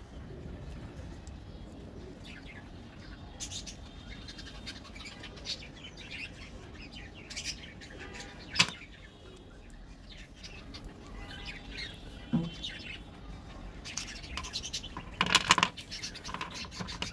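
Squares of Cadbury Dairy Milk chocolate being snapped apart and handled, giving scattered sharp snaps and small clicks. The loudest snap comes about eight and a half seconds in, and a cluster of clicks comes near the end as pieces are set down on the table.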